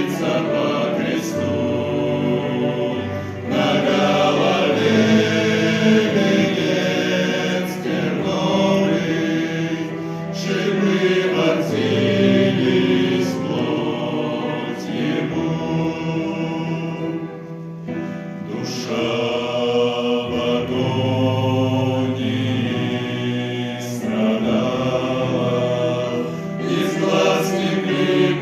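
Male vocal quartet singing a slow Christian hymn in harmony, with a short break between phrases about two-thirds of the way through.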